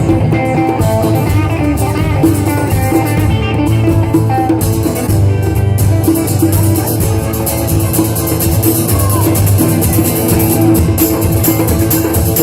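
A band playing rock music: guitar over a drum kit, steady and full.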